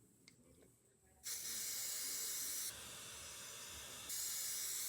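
Aerosol hairspray can spraying: a steady hiss that starts about a second in, softens for a stretch in the middle, then comes back full.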